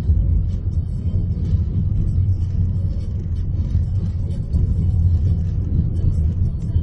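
Steady low rumble of car cabin noise, the drone of a car heard from inside.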